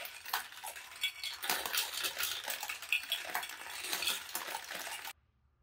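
Marbles rolling and clattering through a plastic marble run's tubes, funnels and bowls: a dense stream of quick clicks and rattles that cuts off suddenly about five seconds in.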